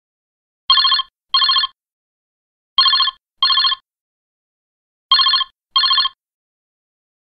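Telephone ringing in a double-ring pattern: three pairs of short rings, the pairs about two seconds apart.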